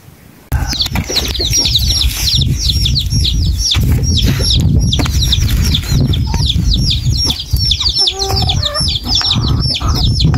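Chickens: a dense stream of high, falling cheeps, several a second, with a few lower clucks about eight seconds in, over a heavy low rumble. It starts suddenly about half a second in.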